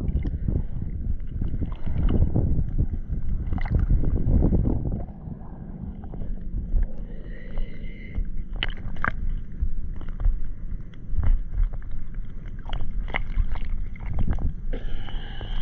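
Seawater sloshing and lapping right against the microphone, with wind buffeting it. From about halfway on, a run of short, sharp clicks and knocks as the fish and line are handled.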